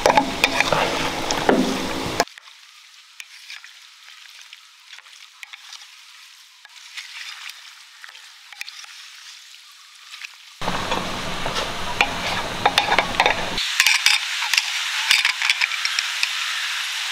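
Wooden spoon stirring raw, wet spiced beef in an aluminium pressure cooker, giving a crackly squelching and scraping with many small ticks against the pot, fainter for a stretch in the middle. Near the end the cooker's lid is fitted, with a few light clicks.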